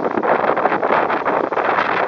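Loud whitewater rapids rushing and splashing around an inflatable raft as it runs through the waves, a dense, steady water noise.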